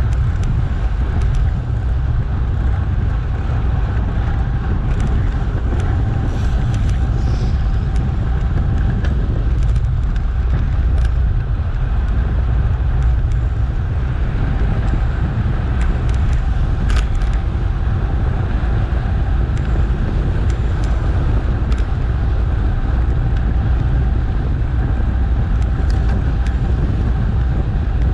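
Steady wind rush and road noise on an action camera's microphone while cycling, loud and even throughout, with a few faint ticks.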